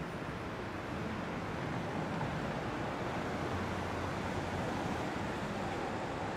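Steady rushing wind noise on the microphone of a camera mounted on a moving bicycle, mixed with the hum of the tyres rolling over the pavement.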